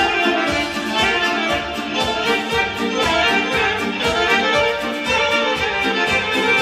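A band playing lively Romanian folk dance music with a steady, quick beat.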